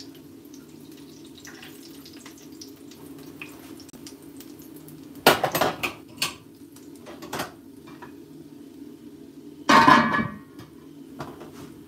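Kitchen dishes and utensils clattering as they are handled: a few sharp knocks around the middle and a louder clatter near the end, over a steady low hum.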